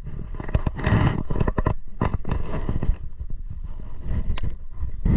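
Inside a Ford F-150 pickup's cab rolling slowly: low engine and road rumble under many irregular sharp clicks and crackles.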